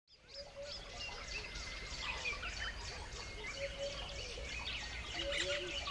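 Several wild birds chirping and calling at once: many quick high chirps and trills, and a lower call repeated several times near the end, over a steady low rumble. The sound fades in at the very start.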